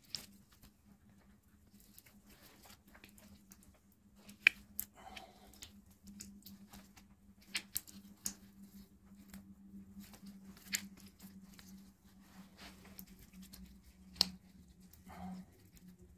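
Scattered sharp clicks and soft rustles of hands and tools handling bonsai wire on a lemon tree's branches, about eight clicks spread irregularly, over a low steady hum.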